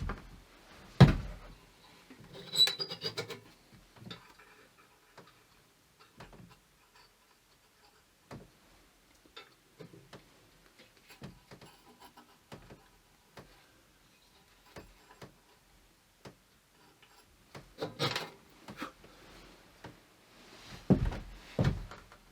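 Objects being handled: scattered knocks and taps, with a loud knock about a second in and a short rattling clatter with a brief metallic ring just after. Two more bursts of knocking and clatter come near the end.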